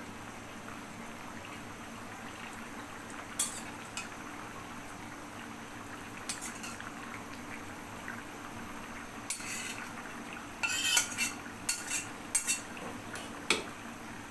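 Utensils clinking and scraping against steel pans as a ground spice paste is scraped from one pan into a simmering curry in a steel karai and stirred in, over a steady low hiss. The knocks come singly at first and gather into a quick run of clinks in the last few seconds.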